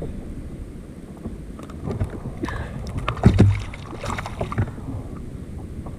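Knocks and handling noise of fishing gear against a sit-on-top kayak's hull over a steady low rumble of wind on the microphone. The knocks cluster in the middle, the loudest a low thump a little past three seconds in.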